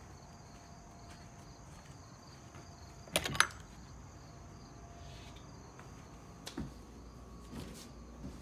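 Crickets chirping steadily and faintly in the background. About three seconds in there is a sharp double click, and a few soft knocks follow near the end.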